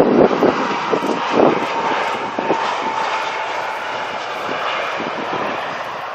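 Airliner's engines passing close on its landing approach: a broad steady roar with a faint high whine, slowly fading. Wind buffets the microphone in the first second or so.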